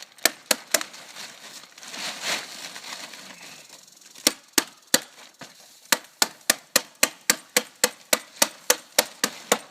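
Stapler driving staples through tarp into 2x4 lumber: three sharp strikes at the start, a rustle, then from about four seconds in a steady run of about three strikes a second.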